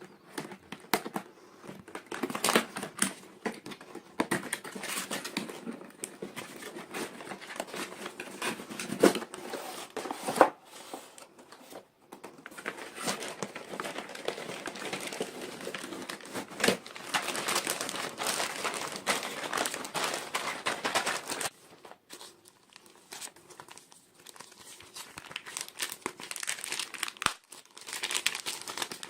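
Crinkly plastic toy packaging being crumpled and torn open by hand, a dense run of rustles and sharp crackles that eases off for a few seconds about three quarters of the way through, then starts again.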